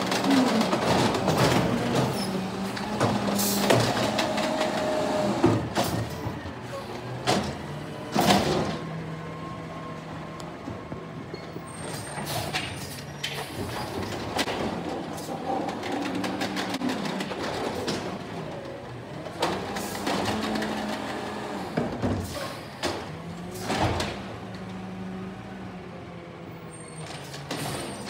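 Automated side-loader garbage truck running, its engine revving up and down as the hydraulic arm lifts and tips carts into the hopper. Sharp metallic clanks and bangs come as the carts are shaken out and set back down, loudest about 4 and 8 seconds in and again toward the end.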